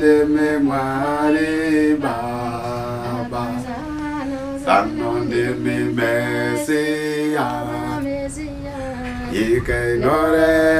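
Unaccompanied voices singing a slow, chant-like song with long held notes.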